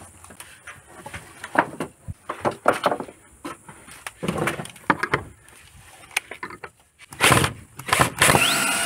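Wood knocking and clattering as old boards are levered and handled, then, about seven seconds in, a cordless drill running steadily as it drives a screw through a metal bracket into a wooden fence.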